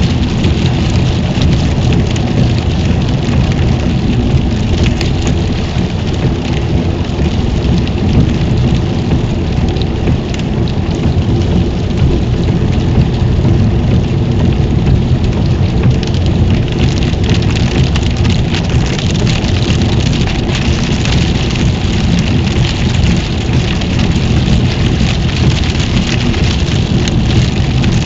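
A car driving at about 50 mph on a rain-soaked motorway, heard from inside the cabin: a steady low rumble of tyres and spray on the wet road, mixed with the hiss of rain on the car.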